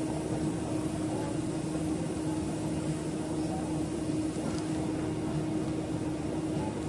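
Steady hum of commercial kitchen machinery, with one constant low tone running under it.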